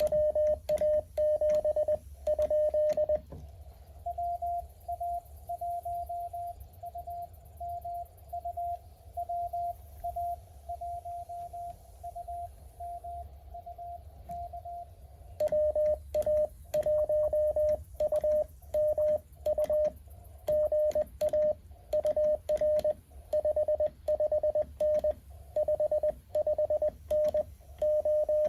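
Morse code from a Mountain Topper MTR-4B QRP CW transceiver: a loud keyed tone with sharp clicks of the key for about three seconds, then a quieter reply from another station at a slightly higher pitch, then the loud keyed tone and clicks again from about halfway through. The loud tone is the operator's own sending sidetone; the quieter one is a contact being received.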